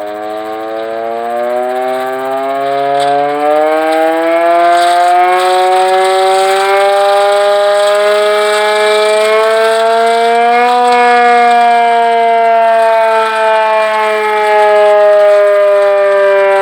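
Air raid siren winding up: several tones together rise steadily in pitch for about ten seconds, then slowly fall as it winds down.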